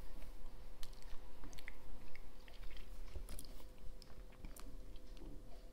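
Dressmaker's shears cutting through cotton wax-print fabric (pagne): a run of short, irregular snips and blade clicks as the cloth is cut.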